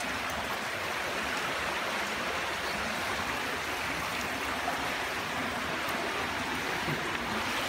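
Steady rush of a cave stream running over rocks.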